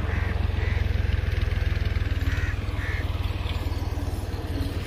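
Tractor engine running steadily with a low, fast-pulsing rumble. Two pairs of short bird calls sound over it, one pair near the start and another a little past two seconds in.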